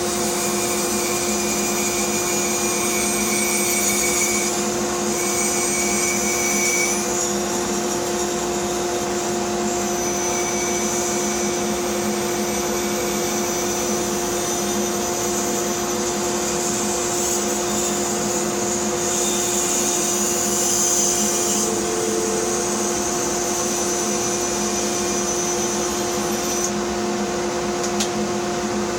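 Bandsaw with a narrow, fine-toothed blade running and cutting tight curves through a wood block: a steady motor hum under a cutting hiss that rises and falls. The cutting hiss drops away about two seconds before the end, leaving the saw running, and there is a single click near the end.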